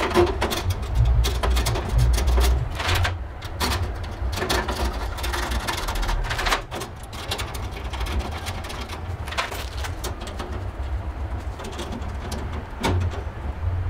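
Irregular metal clicks, knocks and rattles as a thin steel patch panel is fitted into a server cabinet's rack rails and screwed in with a hand screwdriver.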